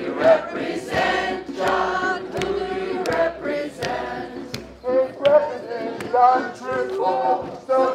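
A crowd of marching protesters chanting together, many voices in unison.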